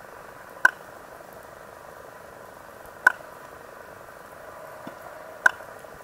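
Stingray making three sharp clicks underwater, about two and a half seconds apart, over a steady underwater hiss.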